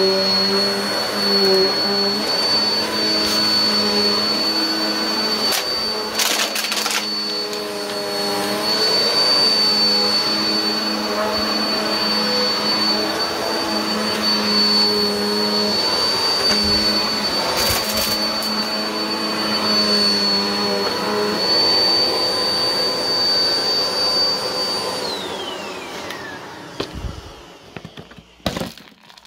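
Bagless Black+Decker upright vacuum running on a rug with a steady high-pitched motor whine, with a couple of brief crackles as debris is sucked up. About 25 seconds in it is switched off and the whine falls away, followed by a few scattered clicks as the dust bin is handled.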